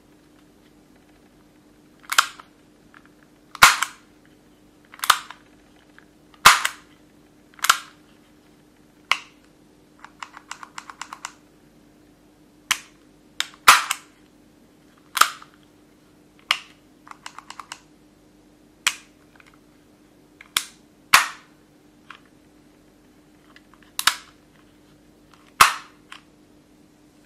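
Sharp mechanical snaps of a Tokyo Marui H&K USP gas blowback airsoft pistol's hammer and decocking lever being worked by hand. There are about fifteen snaps a second or so apart, with two short runs of quick small clicks between them.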